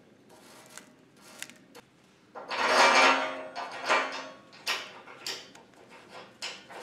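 Handling noise on steel Unistrut channel: a louder scrape about two and a half seconds in, then a few small metal clicks as a bolt and washers are fitted through a hole in its end.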